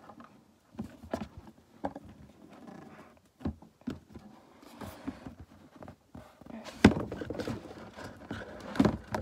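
A cardboard board-game box being worked open by hand: scattered taps, scrapes and fingers rubbing on the card. There is a sharp knock about seven seconds in and another near the end.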